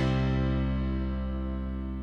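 Outro background music: a final chord struck at the start, ringing on and slowly fading out.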